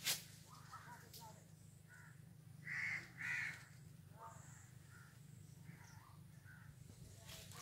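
A crow cawing twice in quick succession about three seconds in, among fainter, scattered bird calls in a mango orchard. A brief knock sounds right at the start.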